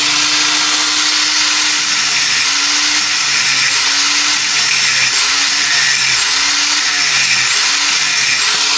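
Electric angle grinder running with its disc grinding a rusty metal pipe: a loud, steady harsh grinding hiss over a high motor whine that wavers a little.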